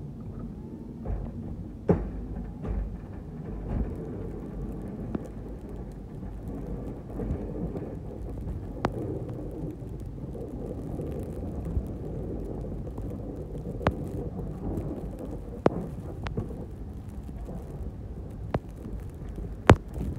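Truck with a front-mounted snow plow pushing snow: a steady low rumble of the truck running and the blade scraping through snow, with scattered sharp knocks, the loudest a couple of seconds in and near the end.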